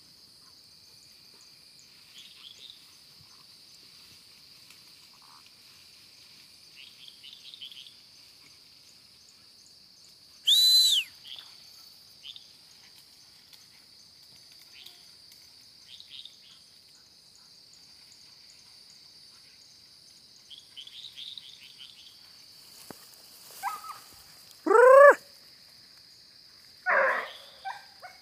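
Night-time chorus of insects making a steady high buzz, with frogs chirping in short clusters every few seconds. A single loud, sharp call comes about ten seconds in, and a few loud calls that rise and fall in pitch come near the end.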